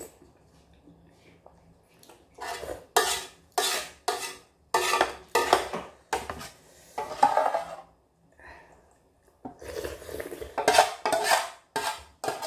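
A metal utensil scraping and clinking against a stainless steel pot as ramyeon noodles are lifted out, in a series of short strokes that come thicker and faster near the end.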